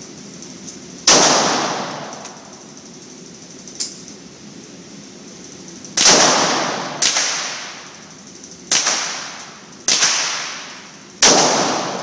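Six single shots from a Glock 9mm pistol, fired one at a time at uneven intervals, several seconds apart at first and then about one a second. Each shot rings out and fades in the echo of the indoor range.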